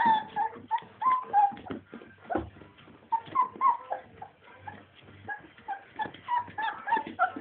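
Four-week-old Scottish Deerhound puppies playing together, with many short high squeaks, yips and whines overlapping, and scattered taps and scuffles.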